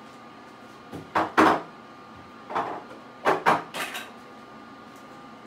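A run of sharp knocks and clatters in a kitchen. The loudest come in quick pairs about a second and a half in and a little after three seconds, with a faint steady hum underneath.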